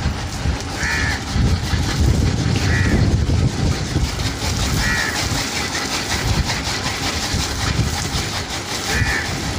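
Water spraying from a garden hose, a steady rushing noise with a heavy low rumble. A crow caws four times, briefly each time.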